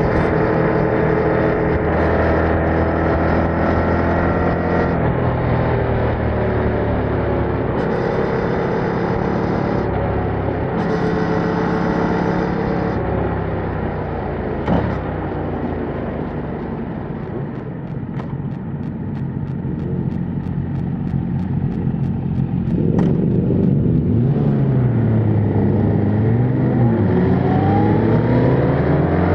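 Yamaha MT-07's 689 cc parallel-twin engine on its stock exhaust, under way: it runs at fairly steady revs at first, eases off and goes quieter around the middle, then the revs dip and climb again near the end as it accelerates.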